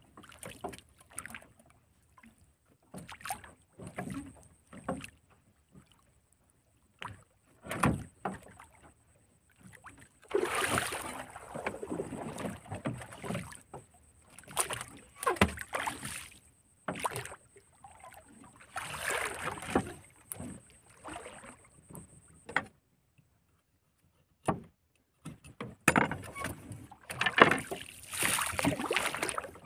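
Irregular knocks and rustling of handling in a small wooden boat as a fishing handline is worked, with louder stretches about a third of the way in and near the end. A faint steady high whine runs until about three-quarters through, then stops.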